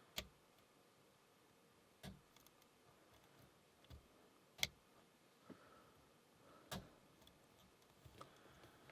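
Faint clicks of a lock pick and tension tool working the pins of a Burg Wächter Karat padlock: four sharper clicks about two seconds apart, with fainter ticks between.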